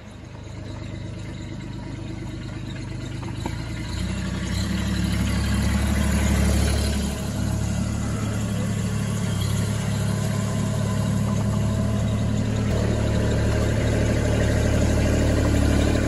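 Engine of a stand-on compact tracked loader running as it works a log grapple, a steady low hum that grows louder over the first few seconds and steps up about four seconds in, with a brief dip about seven seconds in.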